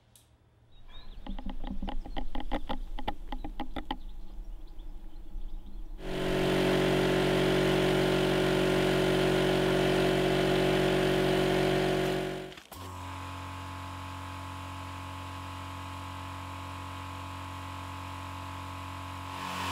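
A conventional piston air compressor running loud and steady, about 75 dB on a sound meter, cuts off sharply. Then the STAHLWERK ST1510 Pro four-motor oil-free air compressor runs as a much quieter, even hum, about 63 dB. Before them, near the start, there is a rapid mechanical rattle lasting a few seconds.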